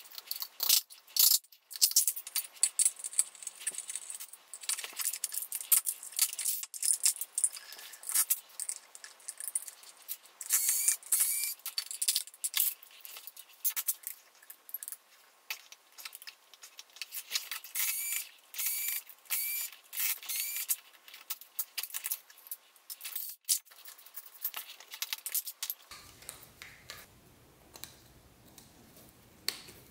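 Sped-up sounds of a vacuum cleaner motor being dismantled by hand: a rapid, dense clatter of metal parts clinking and a screwdriver working screws, with short high chirps repeating in the middle. The clatter stops near the end, leaving a quiet hiss.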